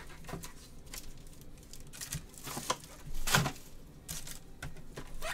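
Gloved hands handling a trading-card box and its cardboard and foil-wrapped contents: a series of short rustles and crinkles, loudest a little after three seconds in.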